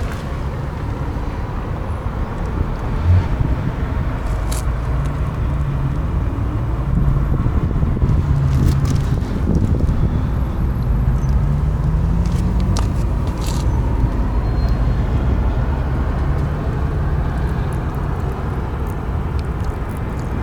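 Road traffic noise: a steady low rumble with vehicles passing, their engine note rising and falling through the middle, and a few light clicks.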